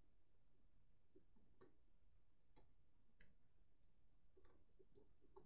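Near silence with a few faint, scattered clicks from hands handling small objects at a table.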